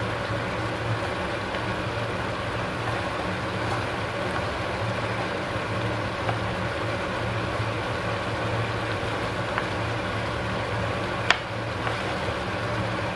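Ramen broth simmering and hissing in a steaming wok, over a steady low kitchen hum, as the noodles are stirred. A single sharp tap of a wooden spatula against the pan comes near the end.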